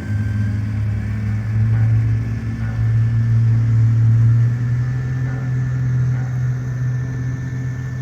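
Radio-controlled boat's electric motor running with a steady low drone, getting louder a couple of seconds in and easing off after about four and a half seconds.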